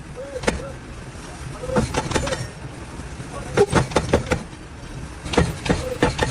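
Irregular sharp knocks, several in quick clusters, over a steady low rumble.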